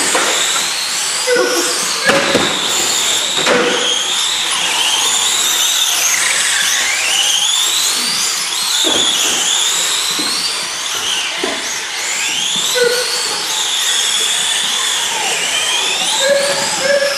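Several electric RC model racing cars running at once, their motors whining in overlapping tones that rise and fall as they accelerate and brake, with a few short knocks.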